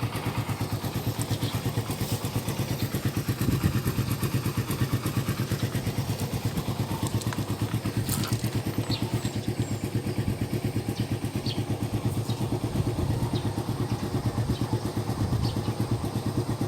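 Yamaha R15's single-cylinder engine idling steadily through an aftermarket Akrapovic exhaust, with a fast, even pulse.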